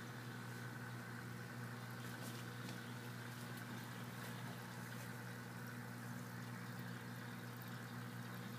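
Steady low electric hum of an aquarium pump, unchanging throughout.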